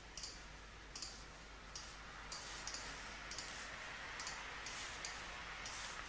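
A computer mouse clicking irregularly, roughly every half second to a second, over a faint steady hiss.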